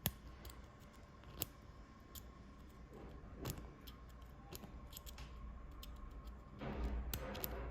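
Scattered light metallic clicks of a Prodecoder Automatic lock decoder being reset in a Yale 3+3 safe lock, with a short stretch of scraping and rattling near the end.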